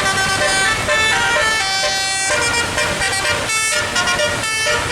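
Bus 'telolet' musical air horn playing a quick melody of stepped notes, broken by a few short pauses, over a low rumble of vehicle noise.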